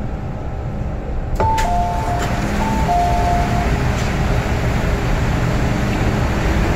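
MTR M-train passenger doors opening: a click as the doors release, then a two-note electronic door chime, high then low, sounding twice, over the steady hum of the stopped train. The surrounding noise gets louder once the doors open.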